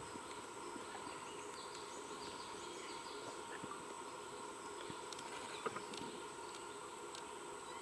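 Forest ambience: a steady drone of insects, with a run of short falling bird chirps in the first half and a couple of sharp clicks a little after the middle.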